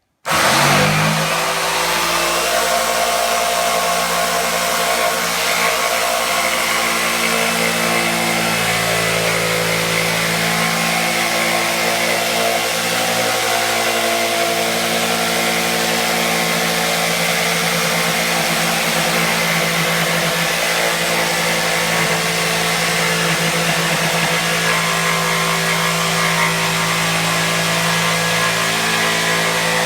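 Electric power tool motor switched on, spinning up in the first second, then running steadily at constant speed with a hissy whine.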